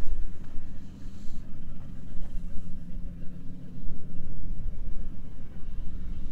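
A low rumble that rises and falls unevenly in level, with a faint steady hum beneath it.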